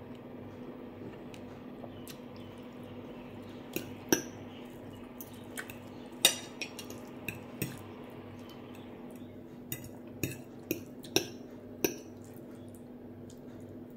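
Metal fork and knife clinking and scraping against a glass plate: about ten short, sharp clinks scattered through the middle and later part, over a steady low hum.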